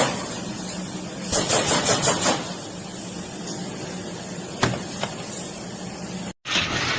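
Industrial machine running with a steady hum, a burst of rattling clatter about a second in, and two sharp clicks near the end.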